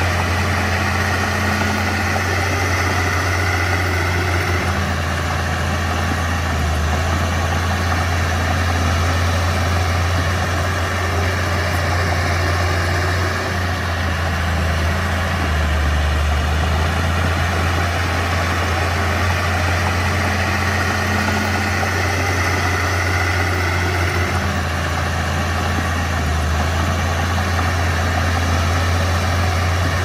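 Komatsu D31P bulldozer's diesel engine running steadily with a deep hum, its note swelling slightly now and then.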